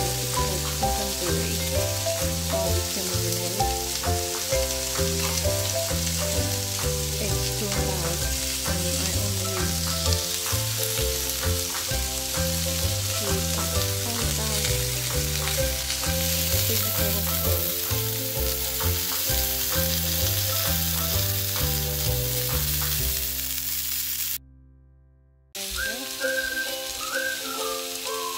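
Marinated chicken skewers sizzling on a hot ridged griddle pan, a steady frying hiss, under background music with a regular bass line. The sound drops out for about a second near the end, then the sizzle returns with a whistled tune in the music.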